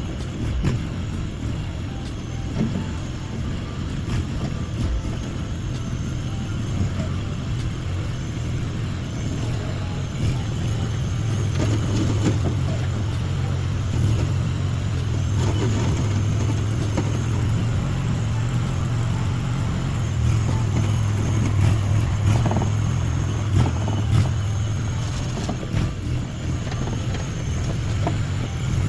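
Small engine of a Chinese mini skid steer running steadily, with a few short knocks over the engine noise.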